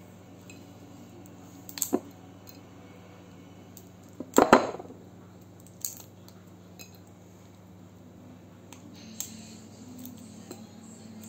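Scattered small clicks and cracks of a boiled narrow-clawed crayfish's shell being picked apart by hand over a ceramic plate, with a few clinks on the plate. The loudest is one sharp knock about four and a half seconds in.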